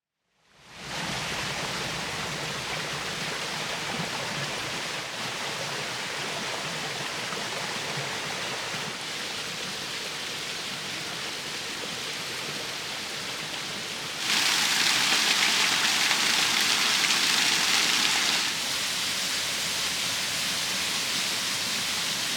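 Running water, a steady rushing hiss, louder and hissier for about four seconds in the middle before settling back.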